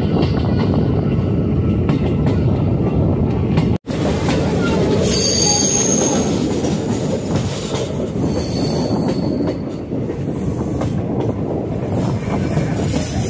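Passenger train heard from on board, running with a steady rumble of wheels on the track. From about five seconds in, thin high-pitched wheel squeal comes and goes over the rumble. The sound cuts out for an instant about four seconds in.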